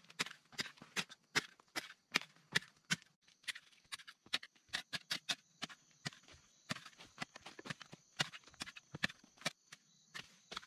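Quick, irregular crunching knocks on dry soil and leaf litter, a few each second. A steady high buzz joins about three seconds in.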